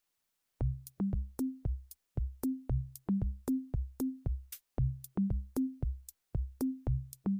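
Background music with an electronic drum-machine beat and a bass line, starting about half a second in after a brief silence.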